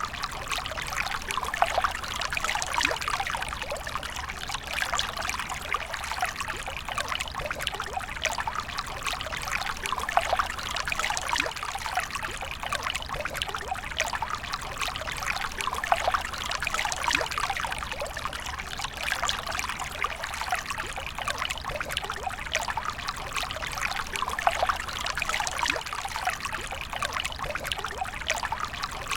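A smooth laminar stream of water pouring and trickling, steady and unbroken throughout.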